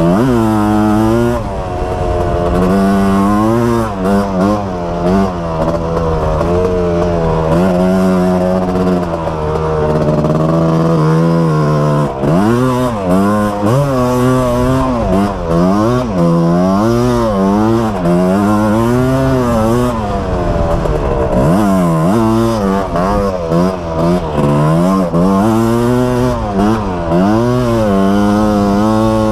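Yamaha Tri-Z 250 three-wheeler's two-stroke single-cylinder engine being ridden hard, its revs rising and falling over and over as the throttle is worked. For several seconds in the first half it holds a steady pitch before the revs start swinging again.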